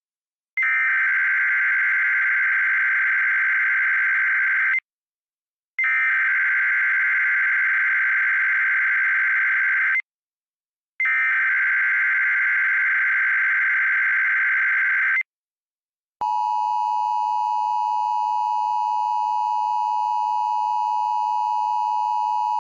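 Emergency Alert System activation: three identical bursts of SAME header data tones, each about four seconds long with a second's gap between them. About 16 seconds in, the steady two-tone EAS attention signal begins and holds.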